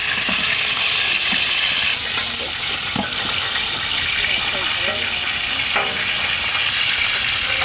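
Pieces of tilapia sizzling steadily as they deep-fry in hot oil in a large wide pan, with a couple of light metal clinks from the cooking utensils.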